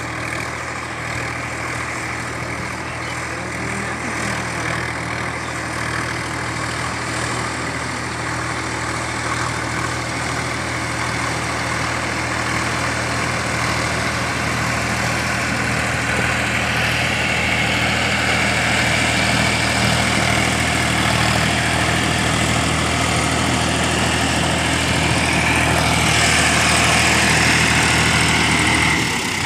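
Sonalika DI 745 III tractor's diesel engine running steadily under load as it drives a rotavator through a flooded paddy field, with the rotavator churning and splashing the water. The sound grows gradually louder as the tractor comes closer.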